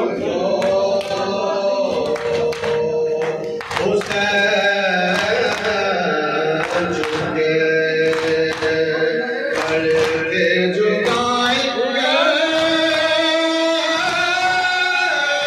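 Voices chanting a soz, a slow Muharram lament with long held, gliding notes, over sharp slaps of hands striking chests in matam.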